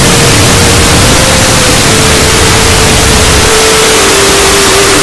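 Deliberately overdriven 'earrape' audio: a loud, unchanging static-like noise across all pitches, with a faint steady tone underneath that steps down in pitch twice.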